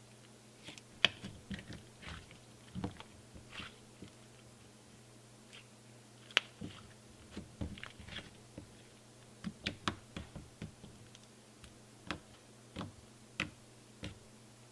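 Soft butter slime being stretched, squeezed and poked by hand, making irregular small sticky clicks and pops, over a faint steady hum.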